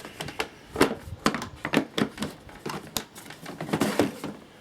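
Tools and their boxes being handled and put down: an irregular run of sharp knocks, clicks and rustles, the loudest about a second in and again near four seconds.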